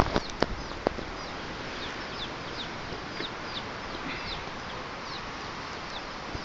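Feral chickens calling: a string of short, high, falling peeps, repeating a few times a second. A few sharp clicks come in the first second.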